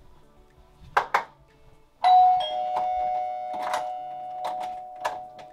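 Two sharp knocks about a second in, then a two-note doorbell chime, a higher note followed by a lower one, both ringing on and slowly fading, with a few soft clicks underneath. The chime signals the food delivery at the door.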